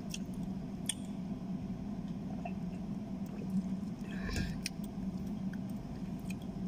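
Room tone: a steady low hum with a few faint clicks, a soft rustle about four seconds in.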